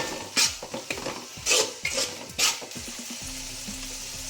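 A metal spoon scraping and clanking against a pan while stir-frying onion and capsicum, about five strokes in the first two and a half seconds, over a steady sizzle that carries on alone near the end.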